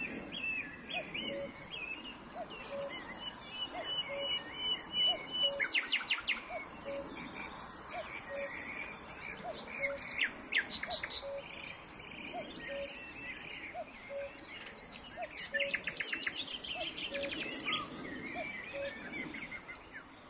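Several birds chirping and trilling, with bursts of rapid high notes now and then. Under them a faint short low note repeats evenly, about every three-quarters of a second.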